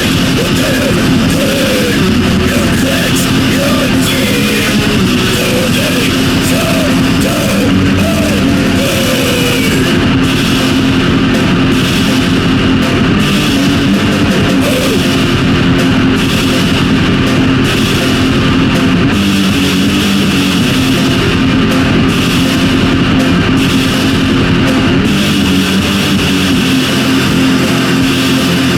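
Heavy metal demo recording: distorted electric guitars and drums playing at a steady, loud level, with a wavering higher melody over the riff for roughly the first nine seconds.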